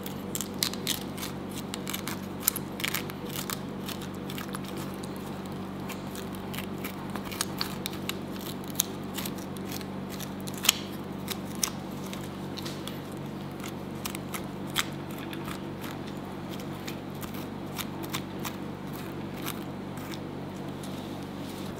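A spoon scraping and digging the fibrous flesh out of a halved pineapple, giving many irregular crunchy clicks and scrapes. A steady low hum sits underneath.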